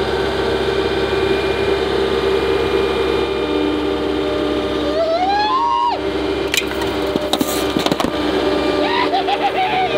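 Single-drum road roller's diesel engine running steadily as the steel drum rolls slowly forward. Partway through comes a cluster of sharp cracks and pops as the drum crushes soda cans.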